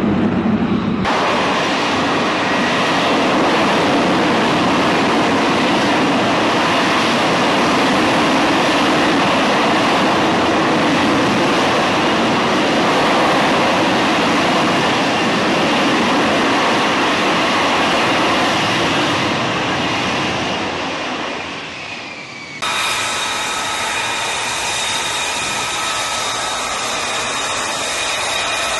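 F-35B Lightning II jet running at high power in a hover, a loud, steady roar. About 22 seconds in it changes to the steadier, high-pitched whine of F-35B jets idling on the flight deck.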